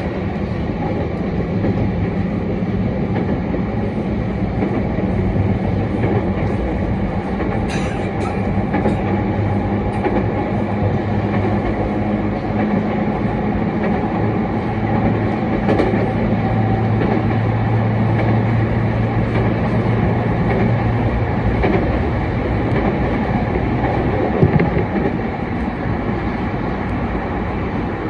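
Sotetsu 10000 series electric commuter train, an unrenewed car still with its original traction equipment, running at speed between stations, heard from inside the car: steady rumble of wheels on rail with a low motor hum. A single louder knock comes about 24 seconds in.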